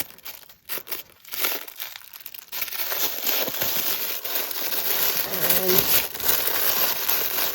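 Paper and packaging crinkling as items are unwrapped from a gift box: a few scattered crackles at first, then continuous rustling from about two and a half seconds in.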